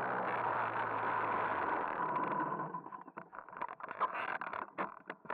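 Small moped engine running steadily, then stopping about two and a half seconds in. Irregular clicks and knocks of handling follow.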